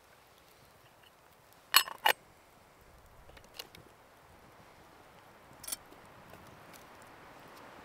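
Metal clinks from a small black camp kettle and its lid being handled: two sharp clinks close together, then another a few seconds later. Faint crackling of the campfire underneath.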